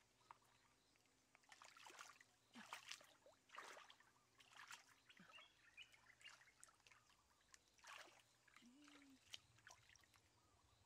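Hands splashing and sloshing in shallow muddy water while groping for fish, in faint scattered bursts, the busiest about two to five seconds in and another near eight seconds.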